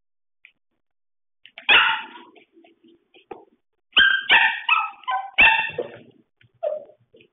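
Corgi puppy giving short, high-pitched barks while playing on its back with a toy: one bark about two seconds in, then a quick run of about five barks a little past halfway, and one more near the end.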